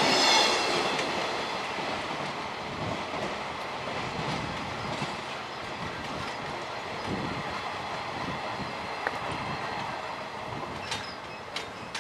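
Freight train wagons rolling past on jointed track, their wheel clatter fading steadily as the train moves away. A few sharp clacks stand out near the end.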